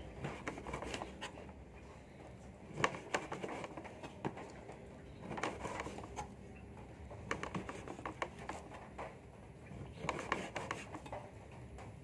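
Scattered light knocks, taps and scrapes of hand food preparation on a table: a knife and utensils working on a board and dish, at irregular intervals.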